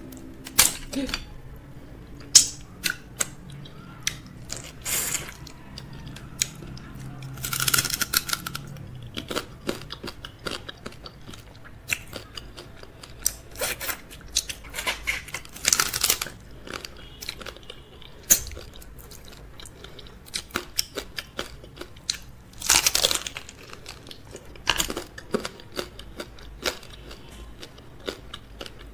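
Close-miked eating: crab shells cracking and crunching between the teeth, with chewing, in many sharp crackles and a few longer crunching bursts.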